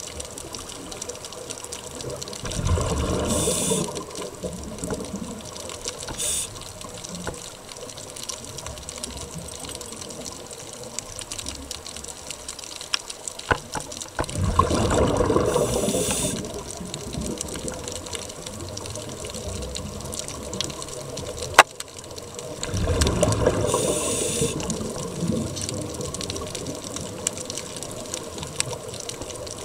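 Scuba regulator breathing heard underwater: three long rushes of exhaled bubbles, roughly every nine to ten seconds, over a steady watery hiss. A single sharp click comes about two-thirds of the way through.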